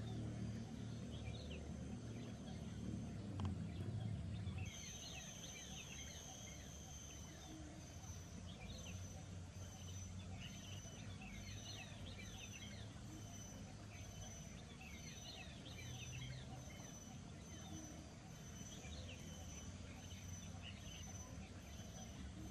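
Wild birds chirping, many short calls overlapping throughout. A low hum underneath stops about five seconds in, where a high, evenly pulsing whine of about one beat a second begins.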